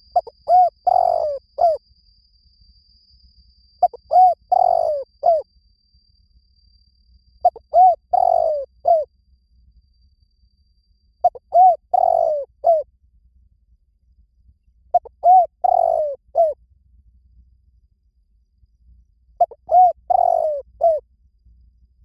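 Spotted dove calling, six phrases about every three and a half seconds. Each phrase is a couple of short coos, a longer falling coo and a short closing coo.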